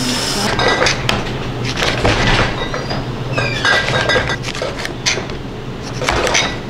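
Dishes and glassware clinking and clattering in irregular knocks, with brief ringing tones over a steady low hum.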